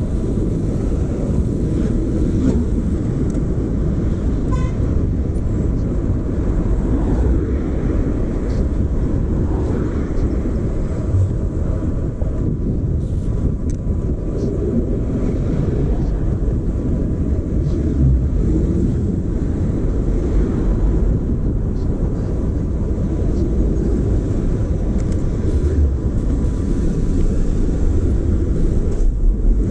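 Steady wind rumble on the microphone of a camera worn by a moving cyclist, mixed with city traffic noise.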